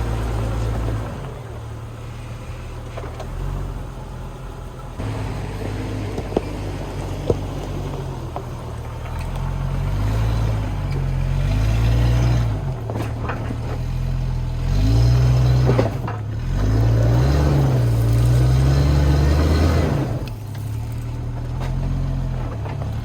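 Stock Jeep's engine revving up and down repeatedly under load while climbing a rocky obstacle, loudest in the second half. The open differential sends power to one tire, which spins in soft dirt. Two sharp knocks about a second apart come some six seconds in.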